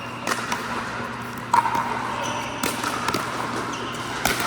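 Pickleball play: sharp pops of paddles striking the hollow plastic ball and the ball bouncing on the hard court, about six knocks at uneven intervals over a steady low hum.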